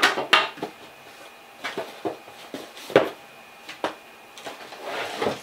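A cardboard retail box being handled and tipped as items are pulled out of it: scattered knocks, scrapes and rustles of the box and its packaging, with a short crinkly swell near the end.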